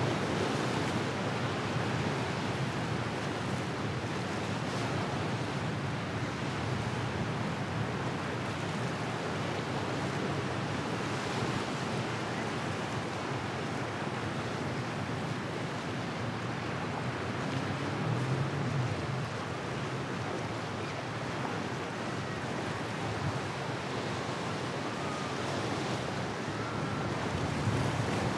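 Steady rush of inlet waves and surf, with wind noise on the microphone.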